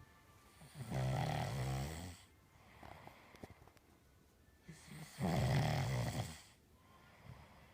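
Snoring: two long, loud snores about four seconds apart, each lasting about a second and a half, with quiet breathing between them.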